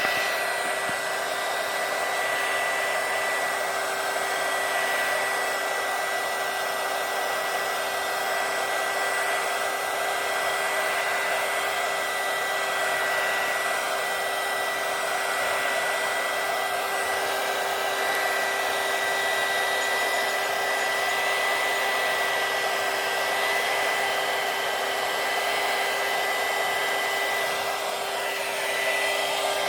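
Electric heat gun blowing steadily, a rush of hot air with a constant high-pitched fan whine and a lower hum, heating fresh wrinkle-finish paint to make it wrinkle.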